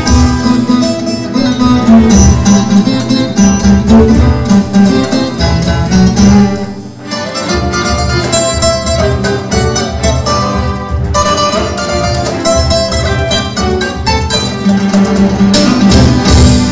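Instrumental music from a cello ensemble playing with a plucked viola caipira, quick plucked notes over sustained bowed cello lines, with light percussion. The music eases briefly about seven seconds in, then carries on.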